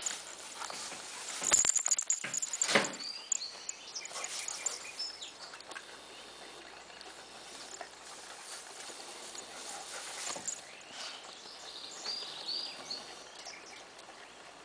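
Dogs moving about in a truck bed piled with dry cut grass: irregular rustling and crunching of the hay, with a cluster of sharp knocks between about one and a half and three seconds in.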